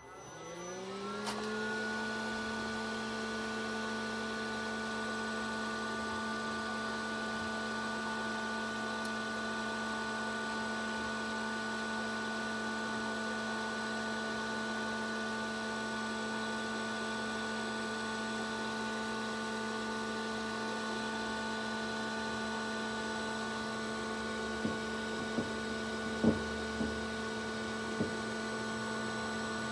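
INVT 7.5 kW variable-frequency drive starting a solar water pump: an electrical hum and whine that rises in pitch over the first second or two, then holds steady as the drive and its cooling fan run. A few light clicks near the end.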